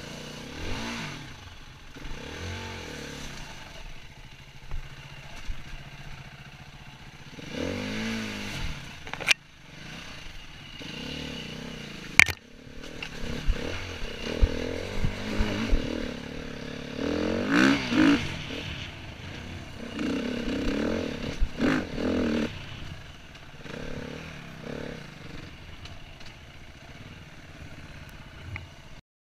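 Enduro dirt bike engine revving up and down in repeated throttle bursts, with clatter and scraping from the bike over rough ground and a couple of sharp knocks, about nine and twelve seconds in. The sound cuts off suddenly just before the end.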